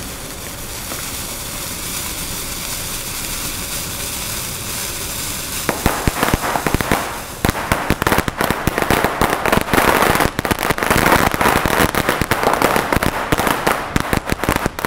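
A lit fuse hissing steadily for about six seconds, then a large bundle of firecrackers going off in a rapid, dense string of sharp bangs.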